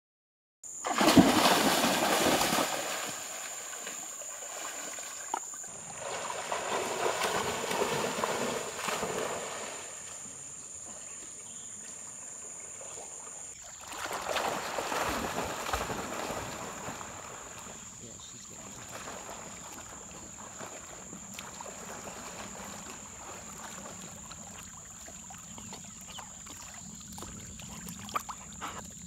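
A chocolate Labrador retriever splashing through a shallow creek: loud splashing about a second in and again in swells a few seconds later and about halfway through, over the steady sound of moving water. A thin, steady high-pitched whine runs underneath.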